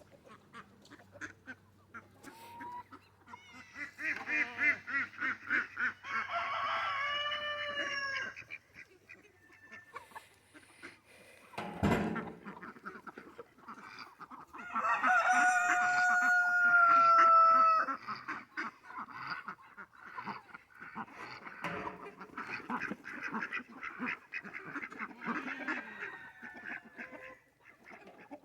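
Farmyard fowl calling. Bursts of quick repeated calls come first, then a single thump about twelve seconds in, then one long call held for about three seconds that sinks a little in pitch, then softer scattered calls to the end.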